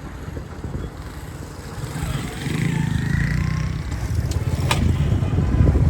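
Motorcycle engine running, growing louder from about two and a half seconds in, amid street traffic, with one short sharp sound about three-quarters of the way through.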